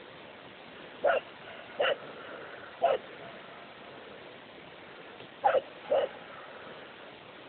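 Five short, sharp canine barks from a dog and a wounded fox fighting: three about a second apart, then two in quick succession later on, over a steady hiss.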